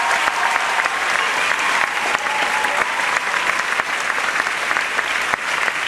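Audience clapping steadily in a large hall, applause for a finished dance performance.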